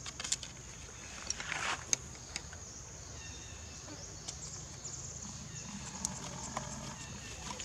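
Outdoor ambience of a steady, high-pitched insect drone, with scattered small clicks and rustles and a few faint short chirps.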